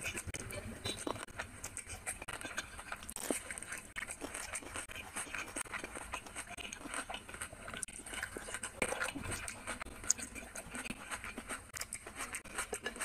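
Close-up eating sounds: wet chewing and lip smacking as rice and chicken curry are eaten by hand, with fingers squishing the rice and curry together on a glass plate, many small clicks throughout.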